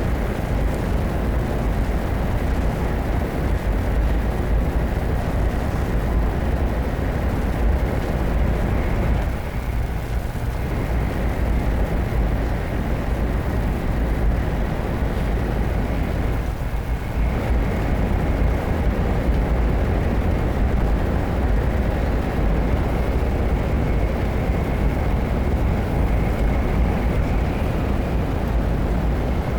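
Interior running noise of a 500 series Shinkansen carriage at speed: a steady, loud rumble with a faint high whine. The rumble thins briefly twice.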